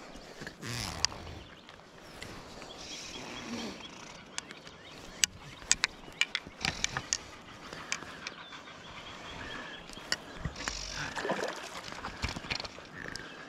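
Scattered sharp clicks and knocks from fly-fishing gear being handled in a kayak, with a cluster of them a few seconds in. Under them is a faint steady outdoor background of water and air.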